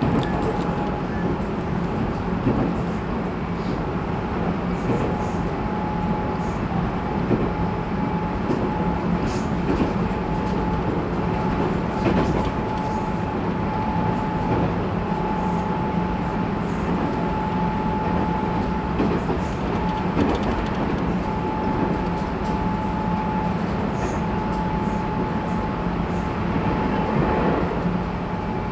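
Interior running sound of a Tobu 20400 series electric train's motor car at speed: a steady rumble of the wheels on the rails, with a steady whine and occasional clicks.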